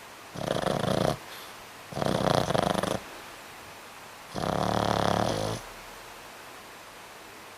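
Boston Terrier snoring: three snores about two seconds apart, each about a second long.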